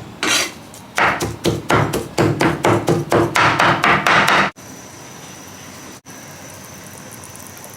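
Kitchen knife chopping pork into mince on a cutting board, a quick run of knocks at about five a second that stops abruptly about halfway through, leaving only a faint steady background.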